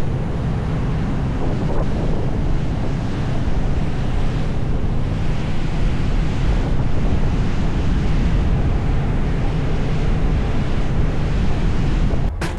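Wind buffeting the microphone on the open deck of a moving ferry, over the rush of choppy water alongside. The steady noise breaks off abruptly just before the end.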